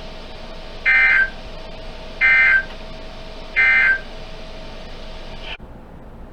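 Three short bursts of Emergency Alert System (SAME) digital data tones, the end-of-message signal that closes a warning broadcast, spaced about a second and a half apart over a faint steady hum. The transmission audio then cuts off abruptly about five and a half seconds in.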